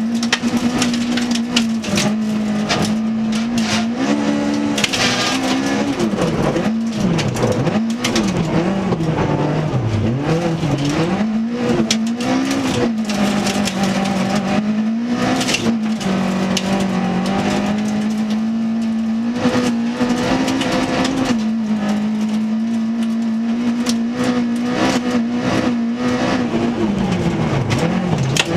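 Toyota Corolla FX-GT rally car's four-cylinder engine heard from inside the cabin under hard acceleration, its pitch rising and falling with shifts and lifts about a third of the way in, then held steady for long stretches. Frequent sharp clicks of gravel and ice striking the underbody run over the engine.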